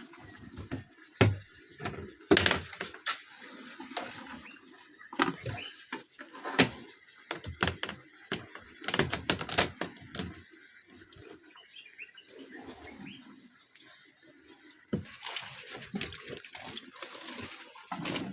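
Water sloshing and splashing, with irregular knocks and clicks throughout.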